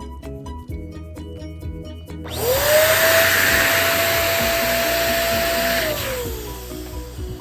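Electric balloon pump starting about two seconds in: the motor whines up to speed with a rush of air, runs steadily for about three seconds while inflating a balloon, then winds down.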